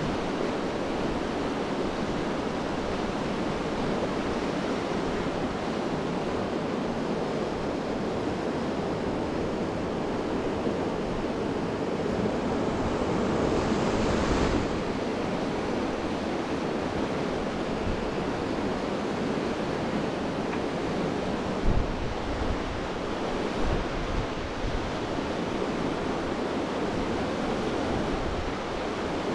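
River water rushing steadily, swelling briefly about halfway through, with wind buffeting the microphone in a few low thumps in the last third.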